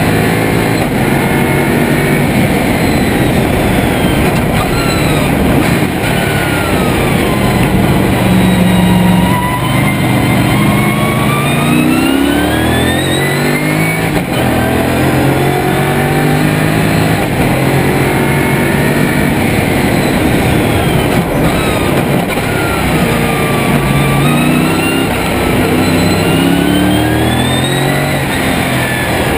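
Lotus Esprit V8 race car's engine at race pace, heard from inside the cockpit, loud throughout, its revs climbing and dropping again and again as it is driven through the gears and corners.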